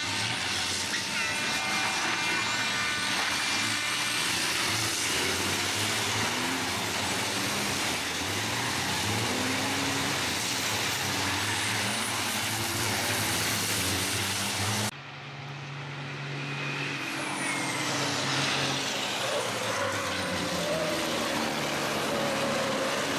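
A pack of racing trucks' turbodiesel engines running hard, revving up and down as they pass. About fifteen seconds in the sound cuts off abruptly, then builds again as more trucks approach.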